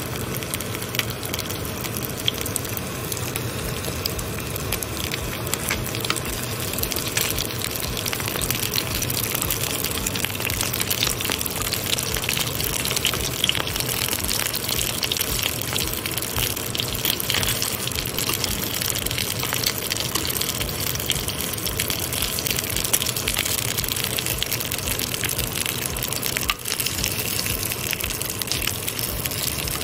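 Chicken siomai pan-frying in hot oil: a steady sizzle with scattered crackles.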